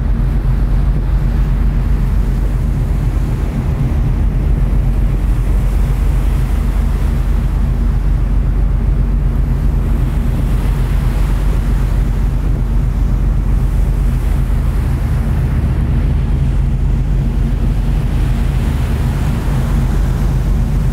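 A ferry's engines droning steadily with several low humming tones, mixed with the rush of sea water and wind buffeting the microphone on the open deck.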